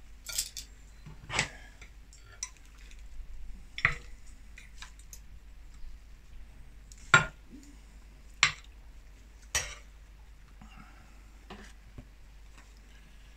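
Metal cutlery clinking against ceramic plates and a baking dish as food is served: irregular separate clinks a second or few apart, the loudest about seven seconds in.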